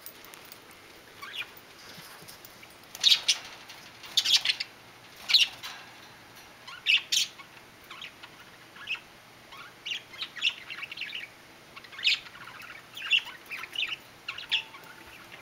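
Guinea pig squeaking: short, high-pitched squeaks at irregular intervals, in small clusters.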